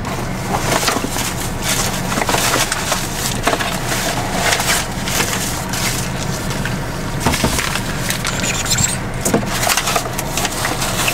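Rummaging through a car's glove compartment for plastic silverware: continuous crinkling and rustling of packets with small clicks and clatters, over a steady low hum in the car.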